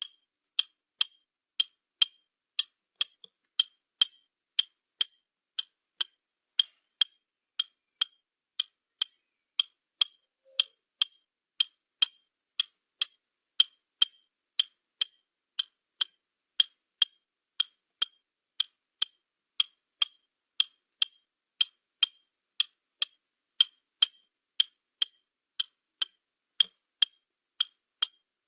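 Ticking clock sound effect used as a 30-second countdown timer, a steady tick-tock of about two ticks a second.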